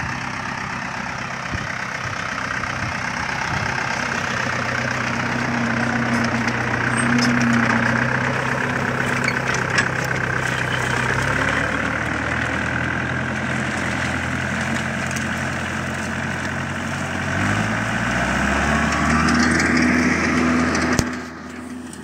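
Tractor's diesel engine running steadily while pulling a stubble shaver through a cane field, with the clatter of the implement and soil over it. The engine note changes twice, about halfway through and again a few seconds later, as engine speed shifts.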